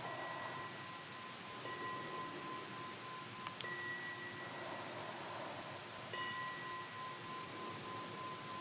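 Faint chime ringing: steady, sustained tones, renewed by soft strikes about three and a half and six seconds in.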